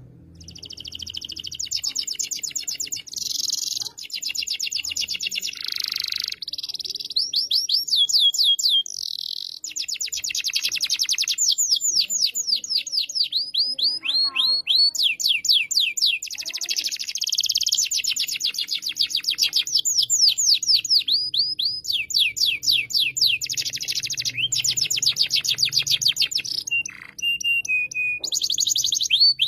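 Domestic canary singing in full song: a long run of fast rolling trills and rapidly repeated chirping notes, phrase after phrase with only brief breaks.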